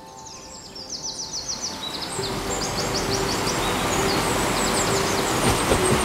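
Rushing river water fading in and growing louder over the first couple of seconds, with songbirds singing quick trills above it. A few soft sustained music tones run underneath.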